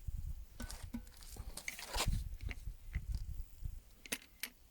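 Scraping, crunching and a few sharp clicks of hands working a hand grease gun at an excavator pivot-pin grease nipple, with low rumble from handling.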